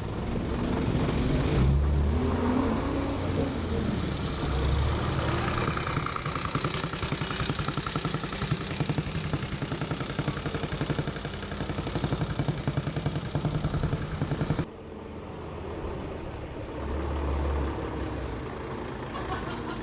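Vintage motorcycle engine running close by, its exhaust firing in rapid even pulses, with rising and falling pitch early on. It cuts off abruptly about fifteen seconds in, leaving a vintage bus engine running more quietly.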